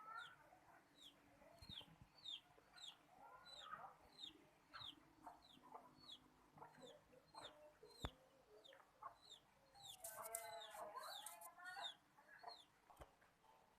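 Faint chickens clucking in short clustered calls, over a steady series of high, falling peeps repeating about twice a second. A single sharp click about eight seconds in.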